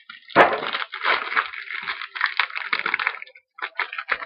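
A trading card pack wrapper crinkles and tears as it is ripped open, then gives a few lighter rustles and clicks near the end.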